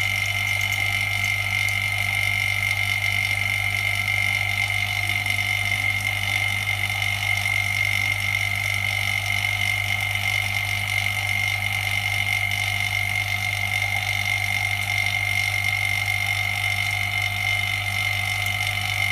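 Steady electrical hum with a constant high-pitched whine over it, unchanging, from the repair bench's powered equipment.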